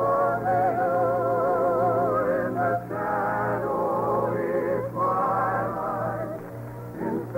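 A sentimental love ballad sung over instrumental accompaniment, the voice holding long notes with a wide vibrato, in phrases broken by short pauses for breath.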